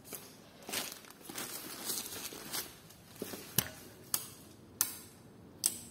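Handling noise: rustling and crinkling of fabric and plastic against the recording device, with four sharp clicks spaced unevenly through the second half.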